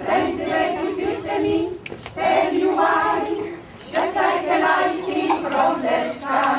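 An amateur mixed choir of older singers, men and women, singing together in three phrases. There are short breaks for breath about two seconds in and just before the four-second mark.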